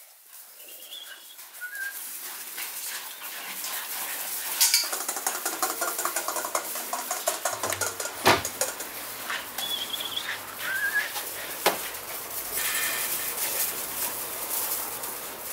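American Bully puppies scrabbling and milling about on gravel, their paws crunching and scratching the stones, with a few short high-pitched squeaks and one sharp knock a little past the middle.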